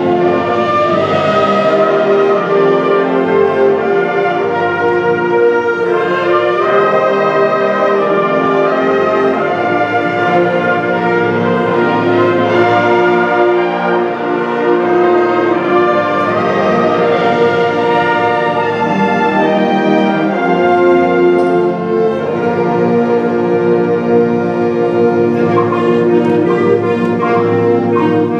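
Junior high symphonic band playing a loud passage of sustained full-band chords, with the brass prominent. Near the end, quick struck percussion notes join in.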